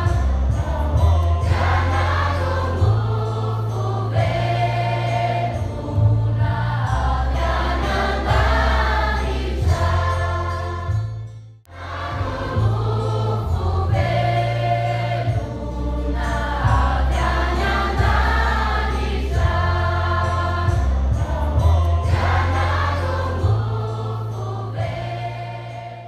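Background music with a choir singing over sustained bass notes; it drops out briefly about halfway through, comes back, and fades out at the end.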